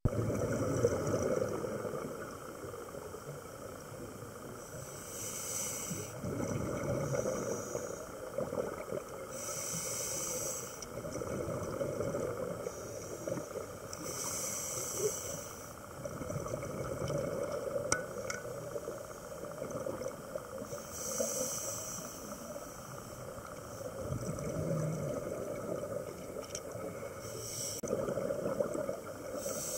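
Scuba diver breathing through a regulator underwater, heard through the camera housing. A regular breathing cycle gives a short hiss about every five seconds over a steady low bubbling rumble.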